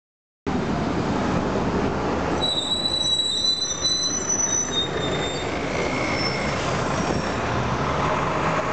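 Mercedes-Benz OH1420 city bus with its OM366A six-cylinder diesel engine running as it moves slowly past, close up. From about two to four and a half seconds in, its brakes give a high-pitched squeal.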